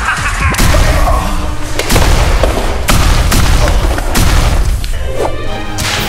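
Dramatic background music with heavy bass and five loud booming hits spaced a second or so apart.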